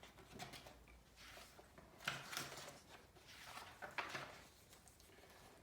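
Faint rustles and soft knocks of a picture book being handled and its pages turned, in a quiet small room; the clearest come about two and four seconds in.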